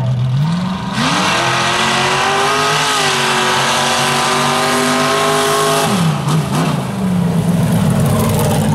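Lifted mini pickup race truck's engine launching off the line: it revs up from idle, is held at full throttle for about five seconds as the truck runs down the dirt drag strip, then drops sharply as the throttle is lifted, settling to a fast idle near the end.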